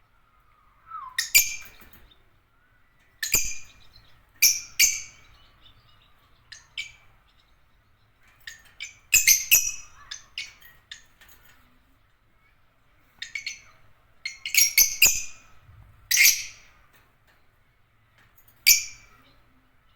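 Lovebirds (Agapornis) giving shrill, sharp chirps and squawks in short bursts, a few calls at a time with pauses between, the busiest flurries about nine and fifteen seconds in.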